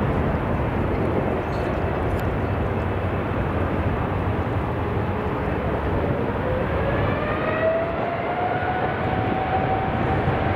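Boeing 787-9 airliner's Rolls-Royce Trent 1000 jet engines running with a steady rush. From about six seconds in, an engine whine rises in pitch and then holds as the engines spool up.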